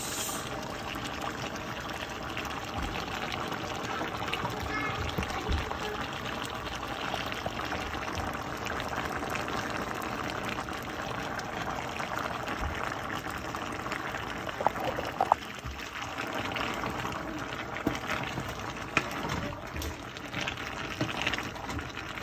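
Pot of beef and green beans boiling on the stove, a steady bubbling of the broth, with a few brief clinks about two-thirds of the way through.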